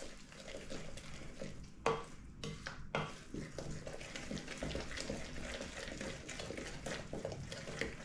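Wooden spoon stirring a runny, seedy bread batter in a glass bowl: a continuous wet scraping and squelching, with two sharper knocks about two and three seconds in.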